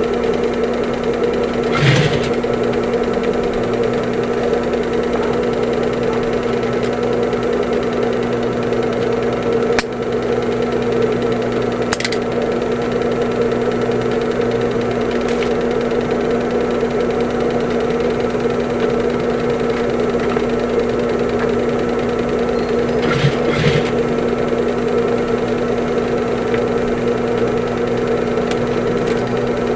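Sewing machine running steadily, stitching a replacement zipper onto a bag, with a few brief clicks between runs.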